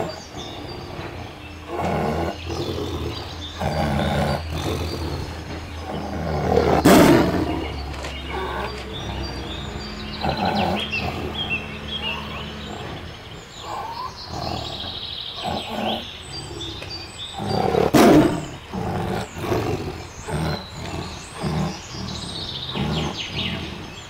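Tiger roaring and growling repeatedly, loudest about seven and eighteen seconds in, with small birds chirping.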